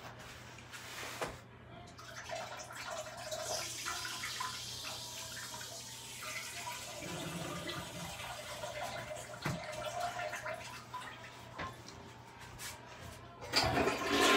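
A person urinating into a toilet, a steady trickle into the bowl water, then the toilet flushes loudly near the end.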